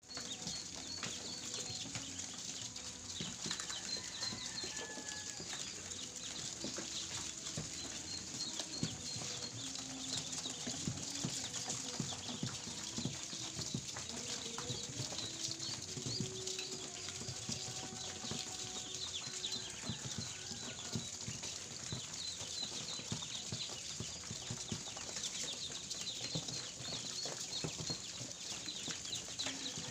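A brood of several dozen newly hatched ducklings peeping constantly, many short high calls overlapping, over a dense crackle of small clicks and scratches.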